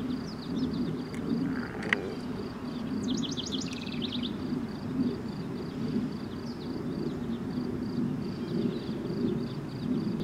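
Summer woodland-edge ambience: an insect's high buzz pulsing about three to four times a second, a bird's quick run of chirps about three seconds in, and a single click near two seconds, over a steady low rumble.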